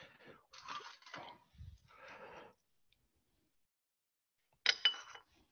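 Soft rustling and scraping of a cloth and ceramic ramekins being handled on a steel bench, then a sharp clink with a brief ringing tone about three-quarters of the way in as a ramekin is set down.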